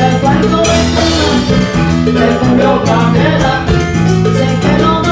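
Live Latin band playing a mambo, with bass guitar, drum kit and keyboard in a steady dance rhythm. A cymbal crash comes about a second in.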